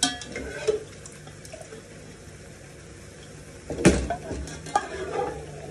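A metal ladle clanking and scraping against a cooking pot and wok while stirring beef. Several light clinks, with the loudest ringing clank about four seconds in.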